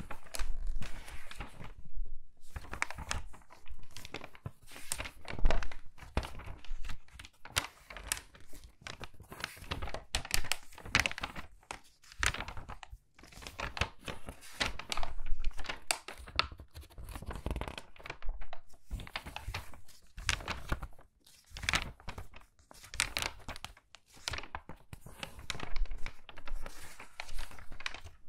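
Crinkly magazine pages being turned quickly, one after another. Each turn is a crackly rustle of paper, often with a soft thump as the page lands.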